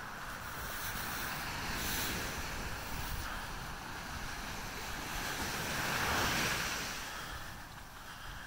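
Ocean surf breaking and washing on the beach, swelling in waves and loudest about six seconds in, with wind rumbling on the microphone.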